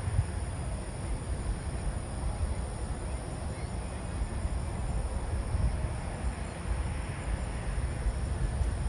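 Steady outdoor background noise with a fluctuating low rumble and no distinct bangs.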